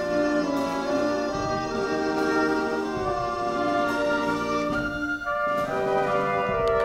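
Orchestral music with brass, a run of held notes changing every half second or so.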